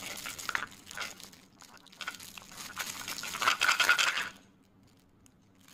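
Clear plastic shrink-wrap crinkling as hands turn over a wrapped wooden game board, a fine crackle that is loudest a little past halfway and stops about a second before the end.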